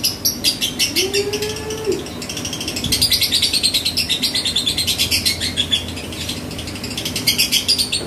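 Three-month-old lovebird singing a long unbroken string of quick, high chirps, about five or six a second, turning into a denser, faster chatter about three seconds in.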